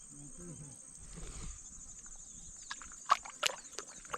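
Steady high-pitched insect chorus from the marsh, with a faint voice in the first second and a few short, sharp splashy clicks about three seconds in.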